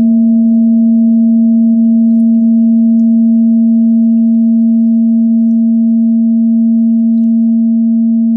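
A meditation bell rings on after a single strike, a steady low hum with fainter higher overtones that fades only slightly.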